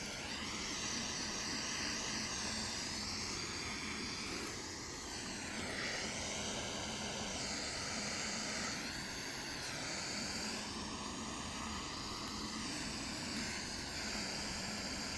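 Butane soldering torch with its soldering tip removed, its flame hissing steadily while it heats a solder seal connector, with a faint tone that slowly wavers up and down.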